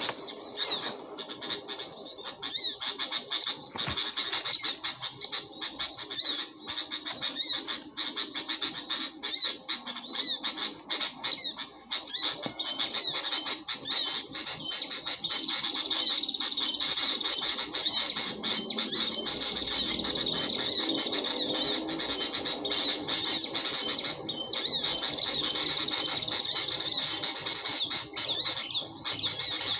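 Rapid, high-pitched bird chirping and trilling from a Bluetooth speaker, played as a trapping lure. It runs almost without a break, with only short pauses.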